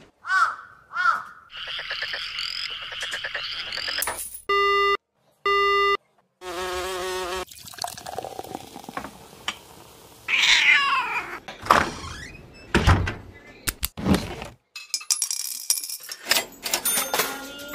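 Kitchen clean-up noises: squeaks and rattles as a dishwasher is opened, two short electronic beeps followed by a longer tone, then clatters of dishes and mugs being handled and plates set onto a cupboard shelf.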